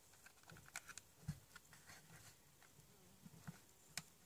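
Faint clicks and taps of a plastic power bank casing being handled and pressed together, with a soft low thump about a second in and a sharper click near the end.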